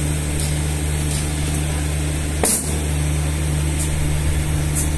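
A steady mechanical hum with a hiss over it, and one sharp tap about halfway through.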